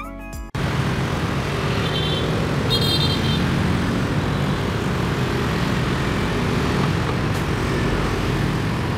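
Busy city street traffic, mostly motorbikes and scooters: a steady mix of small engines running and tyres on the road, with two short high beeps about two and three seconds in.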